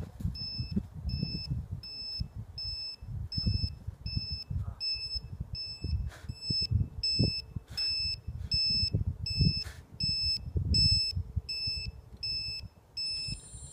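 Electronic alarm beeper sounding a steady train of short high beeps, about three a second, that stops just before the end, where a brief different tone sounds. Irregular low thumps and rumble run underneath.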